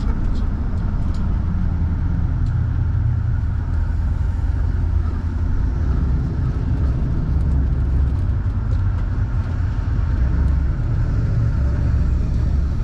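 Vehicle driving at low speed, heard from inside the cabin: a steady low engine and road rumble.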